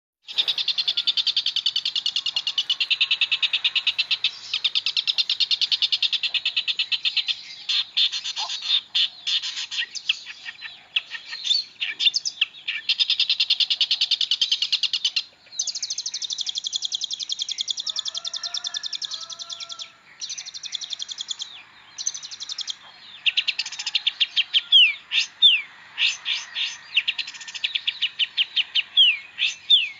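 Shrike (pentet) singing a fast, dense song of rapidly repeated trilled notes in long runs broken by short pauses, turning to sharp down-slurred notes near the end.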